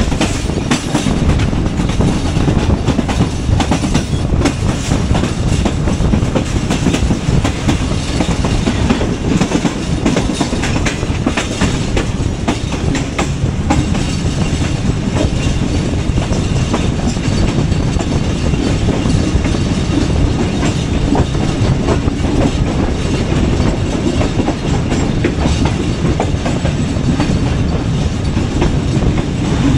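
Awam Express passenger train running steadily, heard from on board, with the constant rumble of the coach and the clickety-clack of its wheels over rail joints.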